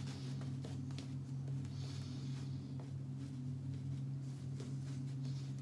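Synthetic shaving brush swirling lather over a stubbly face to re-lather between razor passes: soft, irregular brushing swishes, heard most about two seconds in, over a steady low hum.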